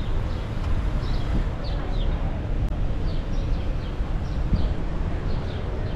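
Steady low rumble of a car driving, heard from inside, with a bird's short high chirps, each falling in pitch, repeating about twice a second.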